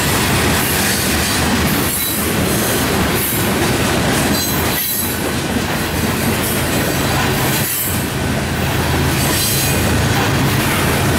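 Covered hopper cars of a freight train rolling past, steel wheels running on the rails with some high-pitched wheel squeal. Near the end a low, steady diesel hum builds as the train's rear distributed-power locomotive approaches.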